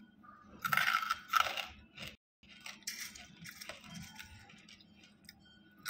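Banslochan (tabasheer, the hard chalky silica from bamboo) crunched between the teeth: two loud crunches about a second in, then quieter crunching while chewing, with small clicks of pieces being picked from a plastic bowl.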